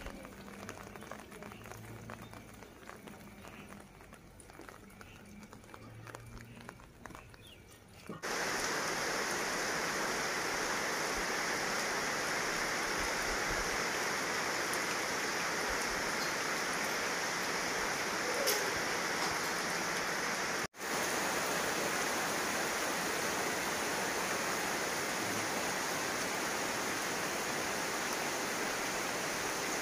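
Rain falling steadily, an even hiss that comes in abruptly about eight seconds in after a quieter stretch. It drops out for an instant about two-thirds of the way through.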